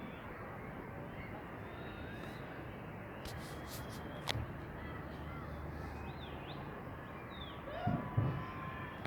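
Distant aerial firework shells bursting over steady city background noise: a single sharp crack about four seconds in, and a louder cluster of booms near the end.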